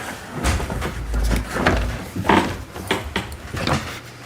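Toy workbench parts being handled and fitted together: several knocks and clicks, with a dull low bump about a second in.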